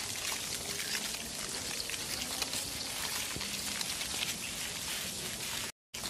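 Steady crackling, pattering noise made of many fine ticks, like light rain on leaves. It cuts out briefly near the end.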